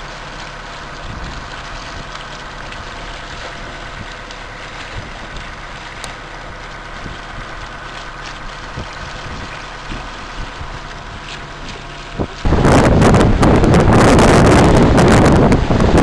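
Steady mechanical hum of a sailboat under way, with a light hiss of water. About three-quarters of the way through it gives way suddenly to loud wind buffeting the microphone, with water rushing past the hull.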